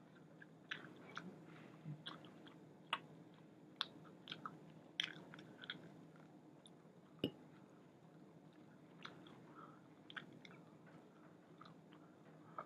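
A person chewing and biting a chicken wing close to the microphone: quiet, scattered wet mouth clicks and smacks, with one sharper tap about seven seconds in.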